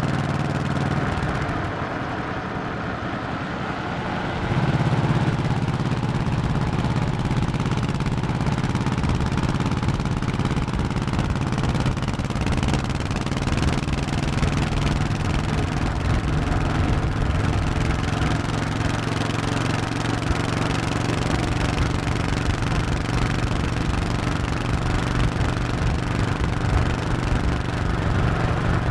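1100cc Honda motorcycle engine running under way. About two seconds in the sound drops back and wavers, as with the throttle eased or a gear change. Near four and a half seconds it comes back louder and then runs steady.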